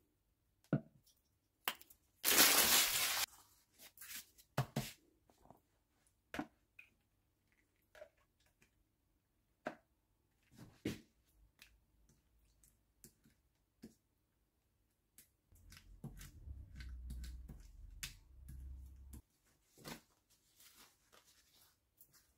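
Kitchen handling sounds while a filo pie is assembled: a loud, hissing rattle of garlic powder shaken from its jar about two seconds in, then scattered light taps and clicks of a whisk and pastry brush against a plastic bowl and pastry, and rustling of filo sheets. A low rumble comes in near the middle and stops a few seconds later.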